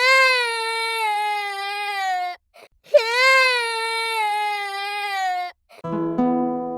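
A long wailing cry, sounded twice almost identically with a short gap; each rises quickly, then sags slowly in pitch. Acoustic guitar music starts shortly before the end.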